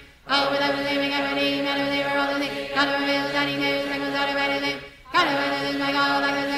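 A decree chanted rapidly on a steady monotone. It breaks off briefly twice, once at the very start and again about five seconds in.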